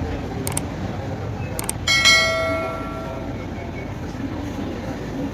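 Two light clicks, then a single sharp metal strike about two seconds in that rings with several tones and dies away over about a second: a hammer hitting sheet metal or a steel tool, over steady workshop background noise.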